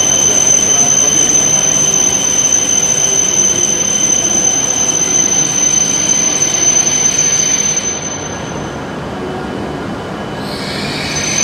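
An E7/W7-series Shinkansen train running slowly along the platform as it brakes to a stop. Its running noise carries a steady high-pitched squeal, the loud stopping noise of the train, which fades out about eight seconds in and returns near the end.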